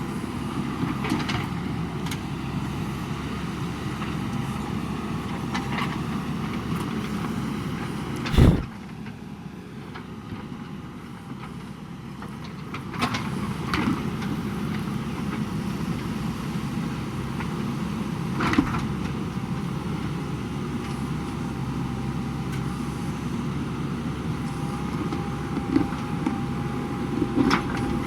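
JCB backhoe loader's diesel engine running steadily under work, with occasional clanks. There is one loud knock about eight seconds in, after which the machine runs quieter for a few seconds.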